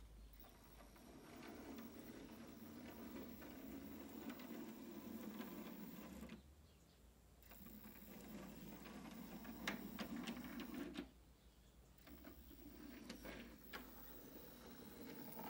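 Model railway tank locomotive's small electric motor and gearbox whirring faintly as it runs along the track. It cuts out twice for about a second, and a few light clicks of the wheels over rail joints or points come in the second half.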